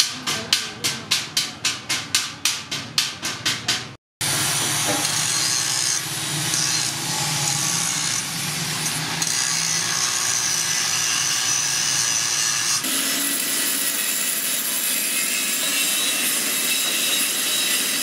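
A hand hammer rapping fast on the welded joints of a steel-strip basket frame, about four to five sharp strikes a second. About four seconds in it cuts off suddenly, and the steady hiss of an aerosol spray-paint can follows.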